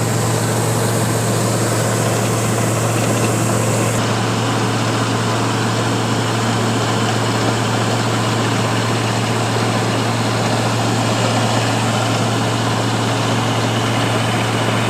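Kubota combine harvester running steadily while harvesting rice: a constant engine drone with a strong low hum.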